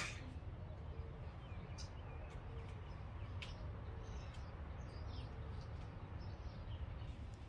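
Quiet outdoor ambience: scattered short bird chirps over a steady low background rumble, with a single sharp click at the start.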